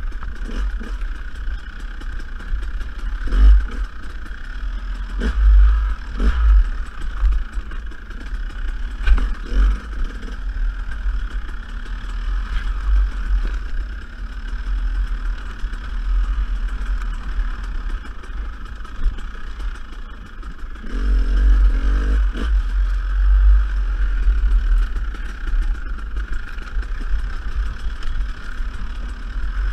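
Dirt bike engine running on a trail ride, its pitch rising and falling with the throttle and getting louder about two-thirds of the way through. A heavy low rumble runs under it, with several sharp knocks and clatter along the way.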